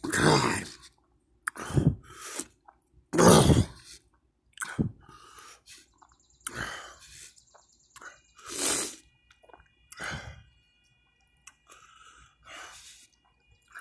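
A person coughing in irregular, harsh bursts, about eight in all, the loudest at the start and about three seconds in, with breathy sounds between.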